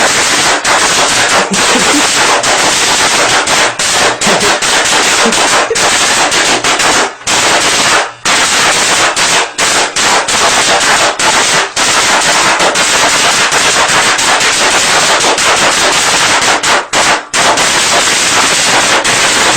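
Firecrackers going off in a shower, a rapid, nonstop crackle of bangs that is very loud, with a few brief breaks about seven, eight and seventeen seconds in.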